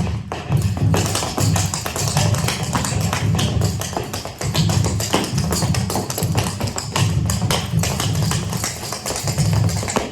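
Music with a steady pulsing beat, overlaid with rapid sharp taps typical of percussive dance footwork.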